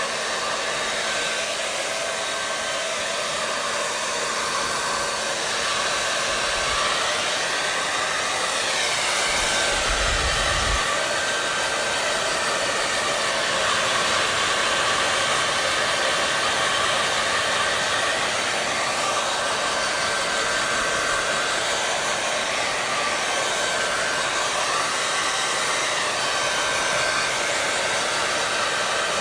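Hair dryer running steadily: a constant rush of blown air with a faint steady whine in it. There is a brief low rumble about ten seconds in.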